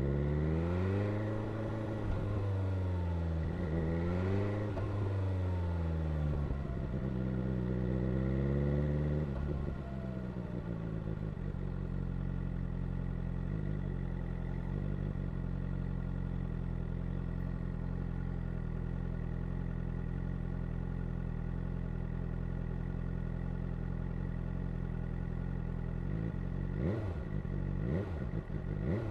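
2022 BMW S1000R inline-four engine and exhaust revving up and down several times, then settling to a steady idle, with a couple of short throttle blips near the end.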